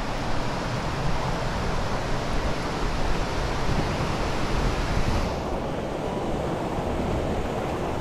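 Steady rush of a brook's water cascading over rocks, with low wind rumble on the microphone underneath; the higher hiss thins out about five seconds in.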